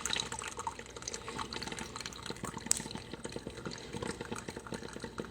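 PowerXL Grind & Go single-serve coffee maker mid-brew: hot coffee trickling and dripping into a travel mug, with a dense, steady patter of small drips and sputters. One sharper tick comes about two and a half seconds in.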